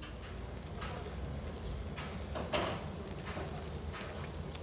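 A few sharp metal clicks and knocks from utensils worked at a vertical döner spit, the loudest about two and a half seconds in, over a steady low hum.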